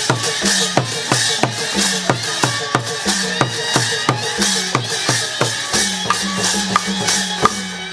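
Burmese hsaing waing ensemble playing: tuned drums of the gilded drum circle struck in quick figures, each note dropping in pitch after the stroke, over a steady beat of small cymbals and clapper.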